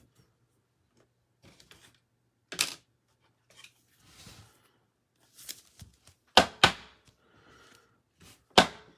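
Trading cards being handled on a table: a few sharp taps and clicks, the loudest two close together about six and a half seconds in and another near the end, with faint rustling between.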